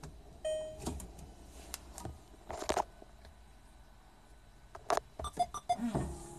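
Clicks and a thump inside a Volkswagen Beetle, with a short electronic tone about half a second in; near the end the windshield wiper motor starts and the wiper sweeps across the glass, with a quick run of short tones.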